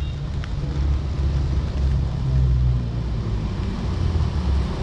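Honda CB150R's single-cylinder engine running with a steady low rumble, under a light haze of road and wind noise.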